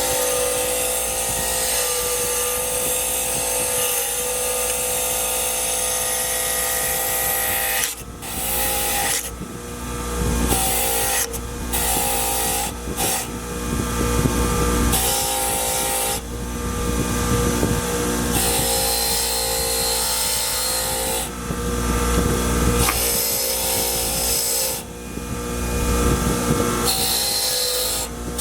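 A small power tool running steadily for several seconds, then in a series of short runs that start and stop abruptly.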